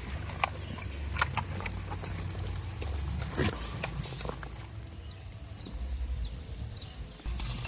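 Goats moving about: a few sharp clicks and knocks, scattered through the first half, over a steady low rumble.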